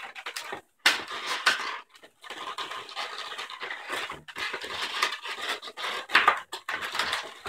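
Inflated latex twisting balloons rubbing and squeaking against each other and against the hands as they are twisted and tied together, in irregular scratchy bursts with a few sharper squeaks.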